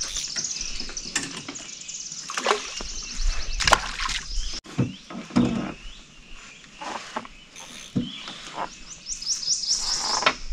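Birds chirping, with a fast high trill near the start and a quick run of rising chirps near the end. Scattered small clicks and knocks come through between the calls.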